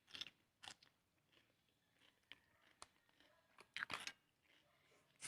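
Faint chewing, with a handful of short, crisp crunches of food being bitten, the loudest cluster about four seconds in.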